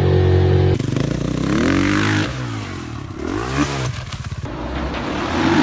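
Dirt bike engine revving: a steady engine tone for the first second, then the pitch rising and falling in repeated swells of the throttle.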